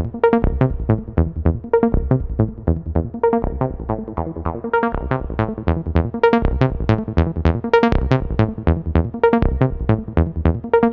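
Electronic background music: a quick, even run of short plucked synth notes over a bass line, about four or five notes a second, with no full beat.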